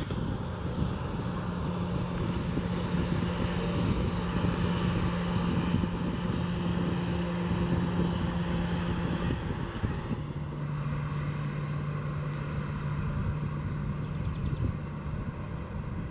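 Boeing 737 airliner's CFM56 turbofan engines running as the jet rolls out along the runway after landing, a steady jet roar over a low hum. About ten seconds in the sound changes abruptly to a lower, steadier engine hum.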